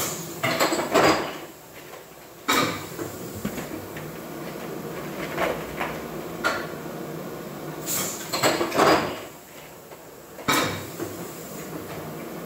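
Rigid clear plastic pieces clattering and knocking as they are handled and set down at a machine, with a sharp knock about every two and a half seconds and lighter rattles between, over a steady background hum.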